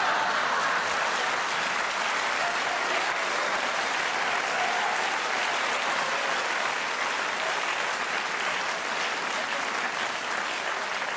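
Theatre audience applauding steadily, easing off slightly near the end.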